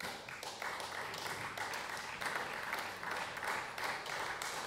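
Many people applauding in a parliament chamber: a dense, steady patter of hand clapping that starts suddenly.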